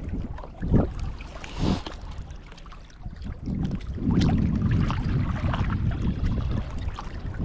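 Wind buffeting the microphone, with brief gusts about a second in and again just before two seconds, then blowing steadily from about halfway, over small waves lapping at a rocky pond bank.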